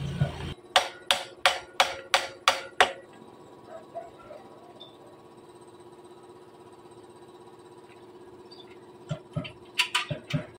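Seven sharp knocks in quick, even succession, about three a second, then a faint steady hum. Another quick run of knocks comes near the end.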